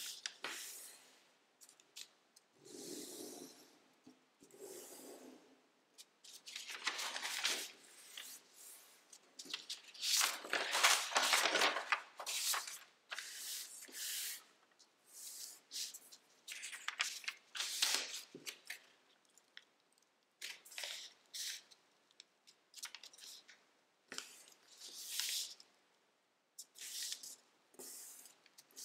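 Tissue-foil origami paper rustling and crinkling in irregular bursts as hands unfold the sheet and smooth its creases flat.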